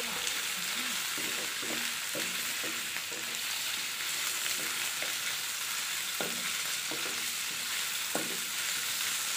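Pork trotters sizzling steadily in hot oil in a wok while a wooden spatula stirs and tosses them round the pan.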